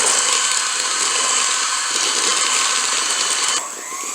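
Electric hand mixer running steadily, beating eggs, oil and sugar into a creamy batter, then switched off near the end.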